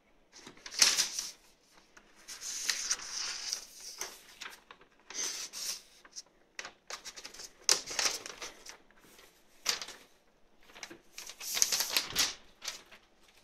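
Sheets of printer paper rustling and crinkling in irregular bursts as a cat grabs them in its mouth and drags them across a desk of loose papers.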